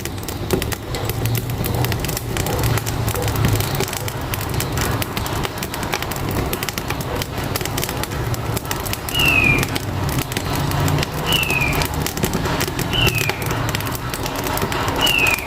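Wood fire crackling in a wood-burning stove, with a low truck engine rumble underneath. From about 9 s in, a bird gives four short, high, falling whistles.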